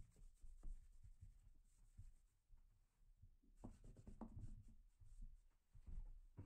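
Faint rubbing and scraping with a few soft knocks as a wooden box is handled and turned on a workbench, the knocks clustered about halfway through.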